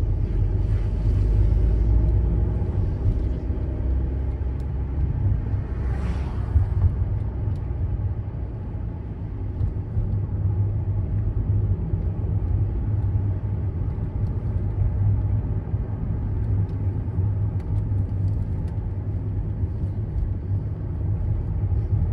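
A VW California camper van driving uphill, heard from inside the cabin: a steady low engine and road rumble. A short rush of higher noise comes about six seconds in.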